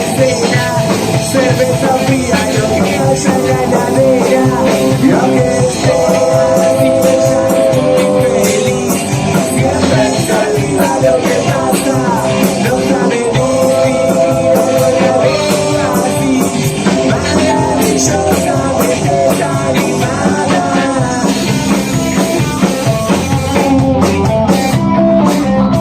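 Punk rock band playing live: distorted electric guitars, drum kit and a singing voice, loud and continuous.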